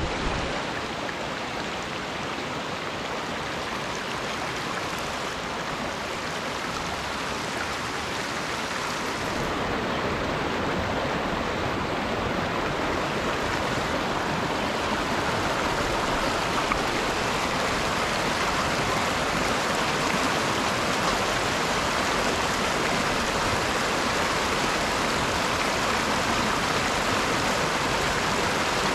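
Steady rushing of flowing water, growing a little louder about ten seconds in.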